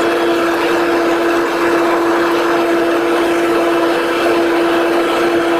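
Steady cabin drone of a Bombardier Dash 8 Q400's turboprop engines and six-bladed propellers, heard from inside the cabin: one strong, even hum over a rushing noise.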